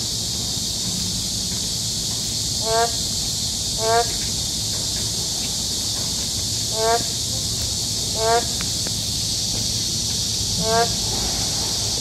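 Boreal digging frogs (Kaloula borealis) giving five short, pitched calls one to three seconds apart: the males' advertisement calls. Under them runs a steady high-pitched hiss.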